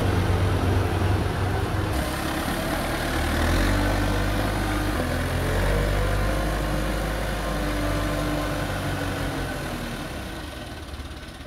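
JCB backhoe loader's diesel engine running as the machine drives past, its pitch rising and falling with the throttle, then fading away over the last couple of seconds.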